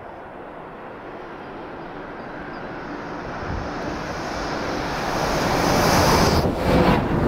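Alstom X40 double-deck electric train running at speed toward and under the listening point: a rushing rumble that builds steadily and is loudest in the last second or so.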